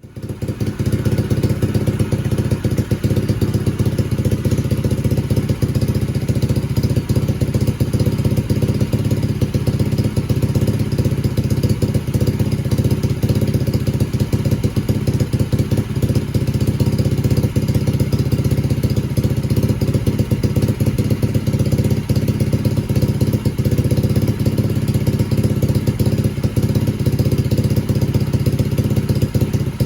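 Yamaha TT-R125 dirt bike's single-cylinder four-stroke engine running at a steady, unchanging speed, cutting in abruptly at the start. It is running on a newly fitted carburettor and spark plug after sitting unused.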